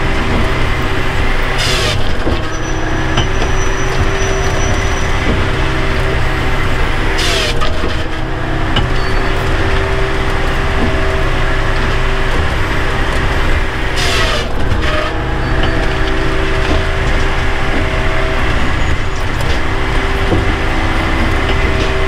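Bells 4000 firewood processor running, heard from its cab: a steady machine and hydraulic drone, with three short sharp noises about 2, 7.5 and 14 seconds in as it works the logs.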